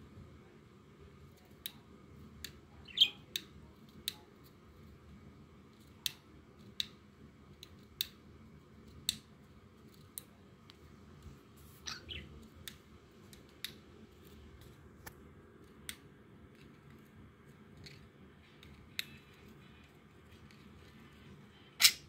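Small caged bird making short, sharp clicks about once a second, with a couple of brief chirps. The loudest click comes right at the end.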